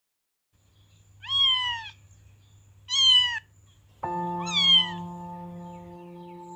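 Cat meowing three times, each meow short and falling in pitch. Background music comes in about four seconds in, under the last meow.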